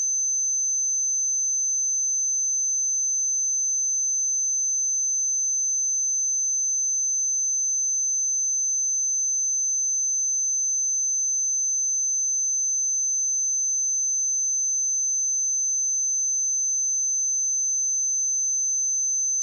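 A steady, unbroken pure sine-wave test tone at 6164 Hz, a single high-pitched note at constant loudness.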